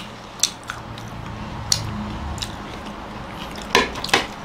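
People chewing pizza, with scattered short mouth clicks and smacks.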